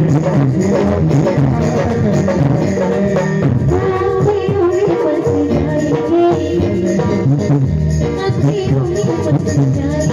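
Hindu devotional bhajan music: a melody over a steady percussion beat.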